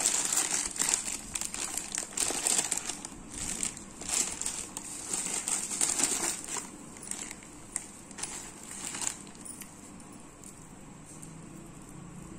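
Plastic bubble wrap and a plastic courier bag crinkling and rustling as they are handled and pulled open. The crinkling is dense for the first several seconds, thins out after about seven seconds, and has died away by the last few seconds.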